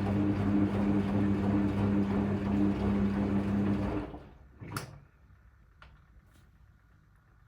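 Hoover Electra 535 Dual Spin washing machine running with a steady motor hum during its rinse stages, then stopping about four seconds in, followed by a single click and a few faint ticks.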